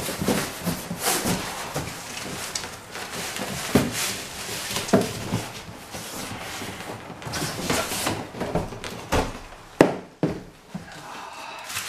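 Long cardboard boxes being handled, an inner box sliding out of an outer one with a run of scraping and rustling cardboard and many short knocks, the sharpest knock about ten seconds in.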